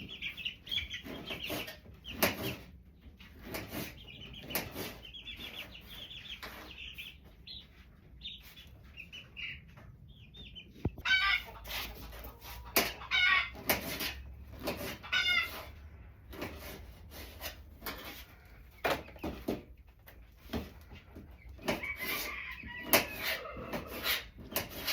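Chickens clucking and calling, with a rooster crowing now and then, punctuated throughout by frequent short sharp knocks.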